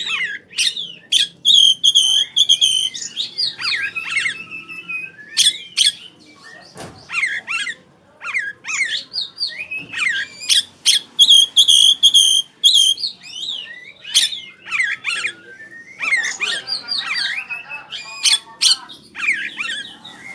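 Oriental magpie-robin (kacer) song: loud, varied phrases of sweeping whistled notes and quick repeated notes, in bursts broken by short pauses.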